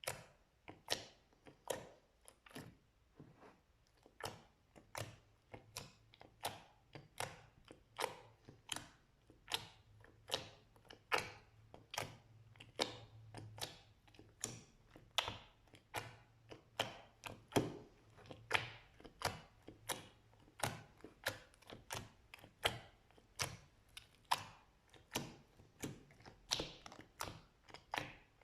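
Slime being played with, giving a run of sharp clicks and pops about twice a second.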